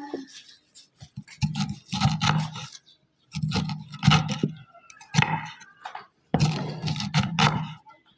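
A person's voice speaking in short phrases with brief pauses between them.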